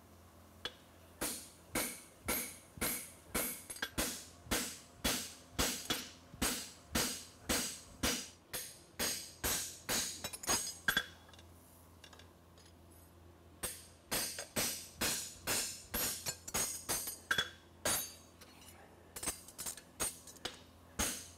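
Hand hammer striking a fuller held against a steel horseshoe on an anvil, creasing the nail groove: a steady run of ringing metal-on-metal blows, about two and a half a second. The blows pause for about two seconds just past halfway, then resume.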